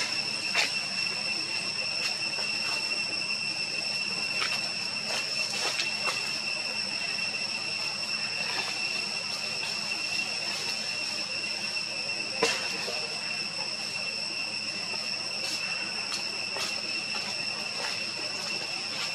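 Steady high-pitched insect drone holding one pitch, over a faint hiss. A few faint snaps or clicks come through it, the sharpest about half a second in and again about twelve seconds in.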